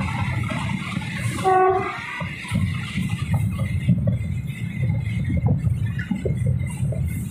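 Passenger train running, heard from on board: a steady rumble with wheels clicking over the rails. A short horn blast sounds about a second and a half in.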